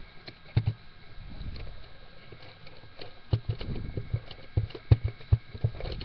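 Handling noise close to a webcam microphone: irregular soft bumps and clicks, coming thicker in the second half, over a faint steady electronic whine.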